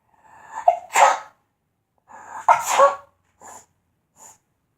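A child's big mock "elephant sneeze": two loud sneezes, about a second in and about two and a half seconds in, each with a short build-up, followed by a couple of soft breaths.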